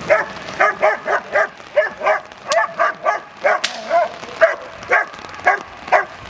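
Black German Shepherd barking fast and repeatedly at a protection-training helper, about two to three barks a second as it lunges on the leash. Two sharp cracks about a second apart come near the middle.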